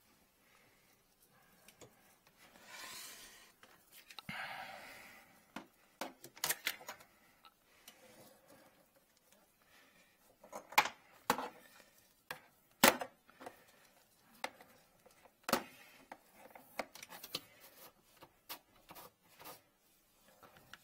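Handling noise from a drain inspection camera cable and a hose being worked by hand in a drain pipe: scattered clicks, knocks and rubbing, with two brief rustles a few seconds in and the sharpest knocks a little past the middle.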